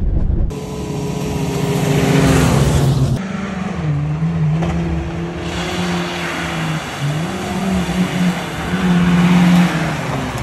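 The Maruti Gypsy's 1-litre carbureted four-cylinder engine revving as it is driven off-road, its pitch rising and falling with the throttle. The sound changes abruptly about three seconds in.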